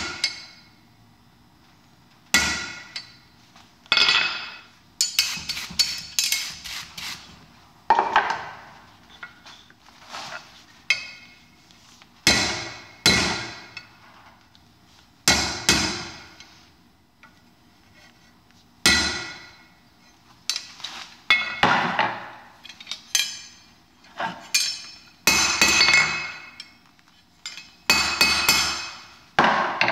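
Hand hammer striking red-hot 3/8-inch mild steel rod on a steel anvil to forge it into shape. The blows are sharp and ring out briefly. They come in groups of a few strikes with short pauses between.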